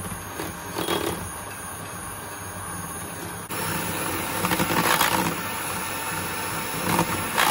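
Handheld electric mixer with a whisk attachment running steadily, whisking a creamy hair-toner mixture of violet pigment and developer in a ceramic bowl. The motor gets louder about halfway through.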